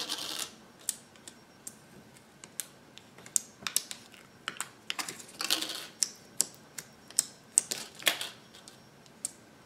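Clear slime in round plastic tubs being handled and poked by fingers: irregular sharp clicks and taps of fingers and fingernails on the plastic, with a few short soft squishing noises, one near the start, one about halfway and one near the end.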